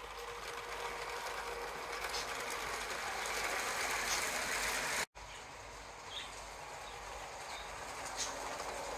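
Motorised Lego trains running on plastic track: a steady motor whirr and wheel clatter that grows as a train passes close. The sound cuts out for an instant about five seconds in, then another train's whirr builds again as it approaches.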